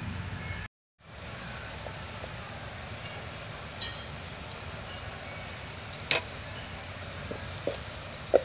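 Pot of bottle gourd curry simmering over a wood fire: a steady hiss with a few sharp clicks, the loudest about six seconds in. A spoon starts stirring the pot near the end. A low hum before a short gap just under a second in.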